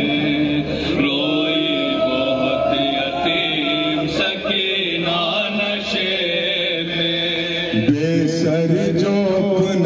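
A man chanting a noha, the Urdu mourning lament, in long held notes that glide from pitch to pitch without a break.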